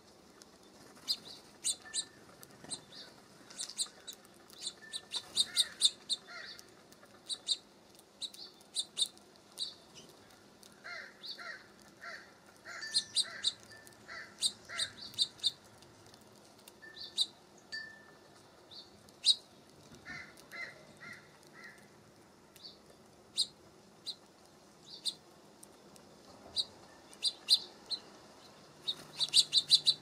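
Small songbirds calling: many short, high chirps scattered throughout, with runs of lower, evenly repeated notes about eleven seconds and twenty seconds in.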